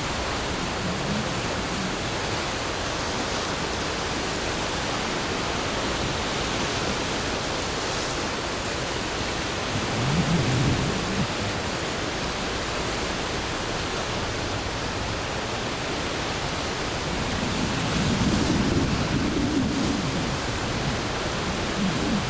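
Steady rushing roar of a river in flood, swollen by typhoon rain. A low rumble swells in briefly about ten seconds in, and again for a couple of seconds near the end.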